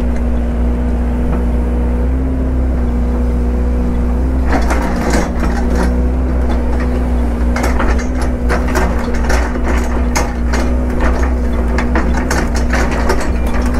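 Excavator's diesel engine running steadily. From about four and a half seconds in come repeated sharp cracks and clunks of wood and brush being grabbed and broken.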